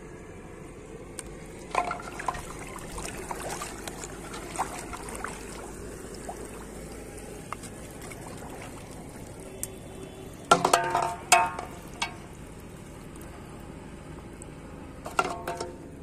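Water trickling and sloshing as plastic bottles are handled in a pond, with a clatter of the bottles knocking against an aluminium basin that rings briefly, loudest a little past the middle, and a few smaller knocks before and after.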